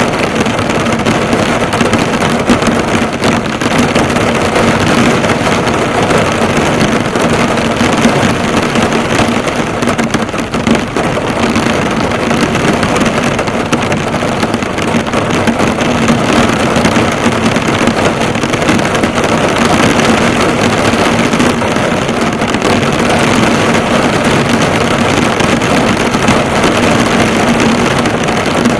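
Heavy rain drumming steadily on a car's hood and roof, heard from inside the car: a dense, constant patter of drops.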